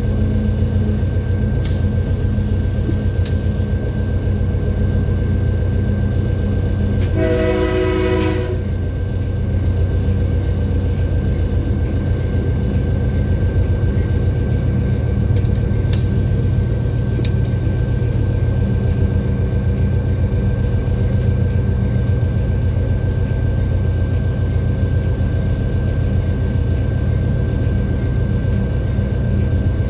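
Diesel locomotive running with a steady heavy rumble, and one short blast of its air horn about seven seconds in.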